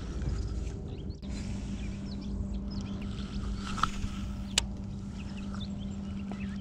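A boat's electric trolling motor humming steadily from about a second in, with birds chirping around it. Two sharp clicks a little past the middle come from the baitcasting reel and rod as a cast is made.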